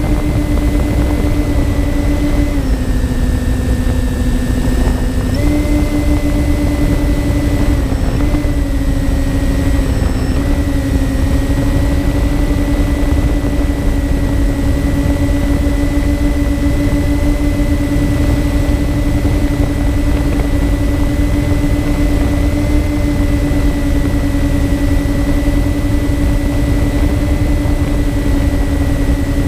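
Twin electric motors and propellers of a MyTwinDream RC plane, heard from its onboard camera in flight: a steady propeller hum over wind rush on the microphone. The pitch drops about two and a half seconds in as the throttle eases, comes back up about three seconds later, and dips briefly twice more.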